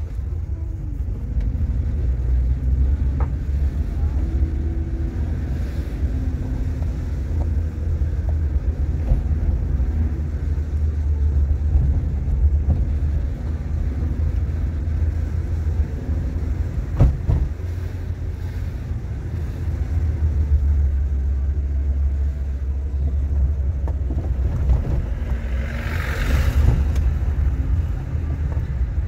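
Car driving, heard from inside the cabin: a steady low road and engine rumble, with a single sharp knock midway and a brief hiss near the end.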